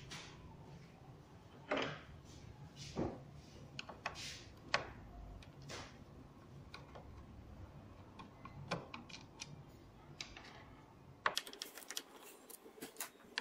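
A metal screwdriver clicking and tapping against the woofer frame and its mounting screws in a Bose 301 V speaker baffle. The clicks come irregularly, a few at a time, and get quicker and denser near the end.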